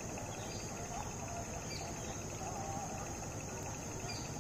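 Crickets and other insects chirping steadily in the grass: a continuous high trill with a regularly pulsing chirp beneath it, and a few faint short chirps over the top.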